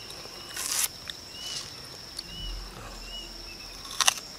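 Raw red onion handled by hand: a short papery rustle of layers being pulled off about half a second in, then a sharp crisp crunch near the end as a raw piece is bitten. A steady high insect drone and short chirps repeating under a second apart run underneath.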